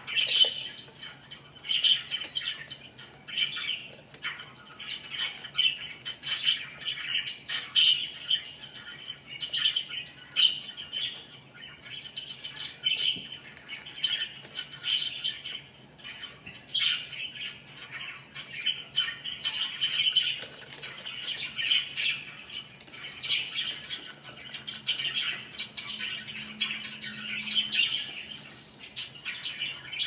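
Pet budgerigars chattering: a continuous stream of short, high chirps and calls.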